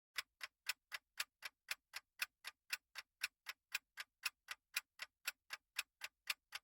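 Countdown timer's clock-tick sound effect: short, even ticks at about four a second.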